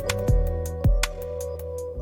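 Background music: a gentle instrumental with sustained notes and a regular beat.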